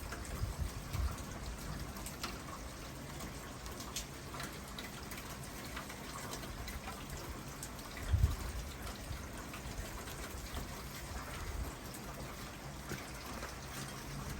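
Steady rain falling, with scattered drop ticks and a brief low thump about eight seconds in.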